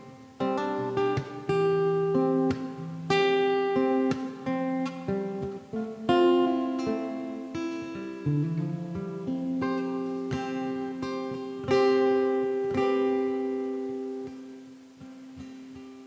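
Acoustic-electric guitar played solo, picked and strummed chords that ring and decay, with a long chord fading out near the end.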